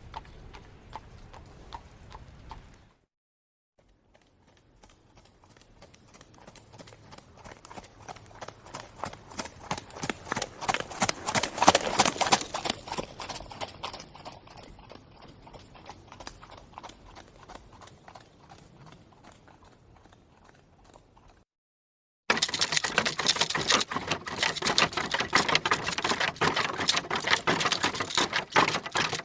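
Horse's hooves clip-clopping on hard ground, a quick run of knocks in three stretches broken by two brief cuts. The middle stretch grows louder and then fades away.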